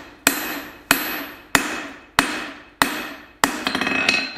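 Hand hammer blows on red-hot steel held in tongs on an anvil, forging a flat onto the taper of a punch: six evenly spaced strikes, about one every two-thirds of a second, each ringing briefly. Near the end comes a quick rattle of lighter ringing taps.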